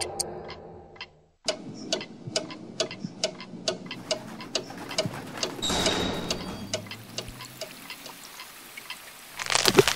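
Clock ticking steadily, about two ticks a second, after a brief break about a second in. A swell of noise comes up around the middle and a louder burst near the end.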